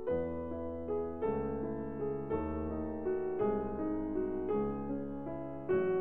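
Background piano music: calm, sustained chords with a bass note, changing about once a second.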